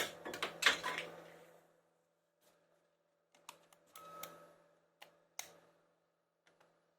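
Walther LP 2 air pistol fired with a sharp crack right at the start, followed by a quick run of smaller hits that die away over about a second. A few seconds later come several separate mechanical clicks and clacks.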